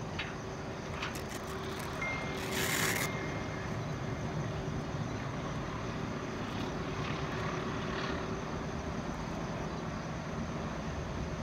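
Steady distant rumble of vehicles, with a brief hiss about two and a half seconds in.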